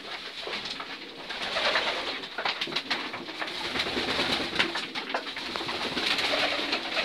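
Racing pigeons cooing in a small loft while they feed, with wing flaps and many scattered short clicks.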